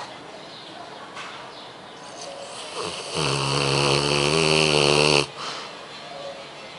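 Dog snoring in its sleep: one loud, drawn-out snore about three seconds in, lasting about two seconds and cutting off sharply.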